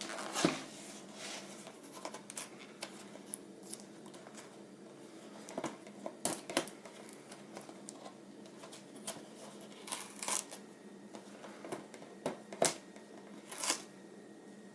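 A large cardboard toothbrush gift box being opened by hand: scattered scrapes, rustles and sharp clicks of the packaging, with a few louder snaps near the middle and toward the end.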